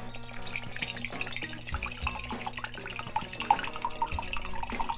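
A drink pouring from a plastic bottle into a glass pitcher, splashing steadily as the pitcher fills.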